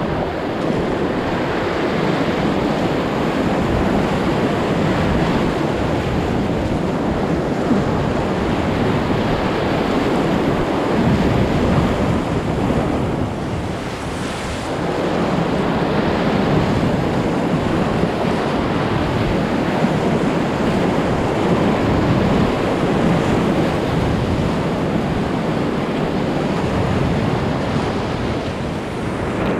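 Whitewater rapids rushing around an inflatable kayak: a loud, steady wash of moving water, with some wind buffeting the microphone. It eases briefly about halfway through.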